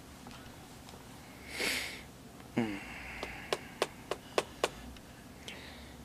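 A man sniffs, makes a brief low murmur that falls in pitch, then there is a run of six sharp clicks at about three a second.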